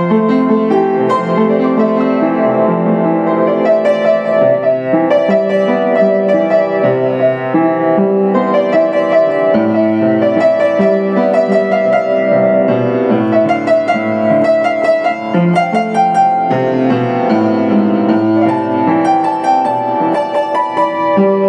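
Yamaha U1J upright piano being played, a continuous stream of overlapping notes and chords.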